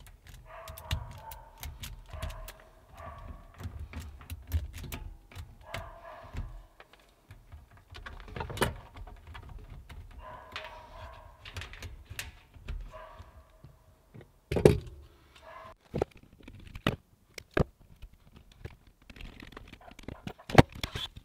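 Small clicks and taps of hands working wires and the metal terminals of a well-pump pressure switch, with a louder knock about fifteen seconds in.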